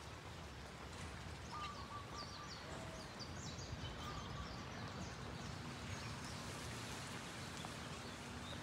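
Faint outdoor ambience: a steady low background rush with a few short bird chirps and whistles in the first half, and a faint steady hum joining about halfway.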